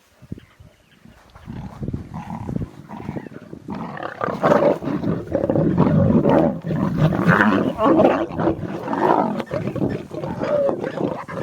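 Lion cubs growling at each other in a tussle over a scrap of meat, faint at first and loud and continuous from about four seconds in.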